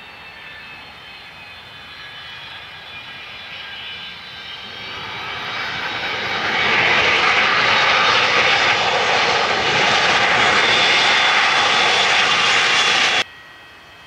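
Boeing 727's three Pratt & Whitney JT8D jet engines running as the trijet rolls past on the runway: high whining tones shift in pitch while the sound builds to loud about seven seconds in, then cuts off suddenly near the end.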